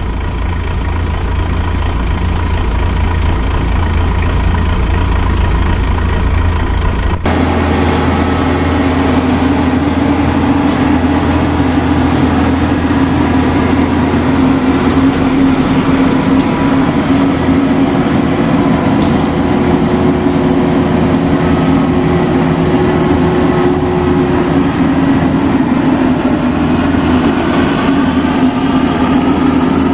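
Diesel engine of a Maxxi Bimo 102 combine harvester running steadily as the machine is brought down off its truck. About seven seconds in the sound changes abruptly and a steady, higher drone takes over.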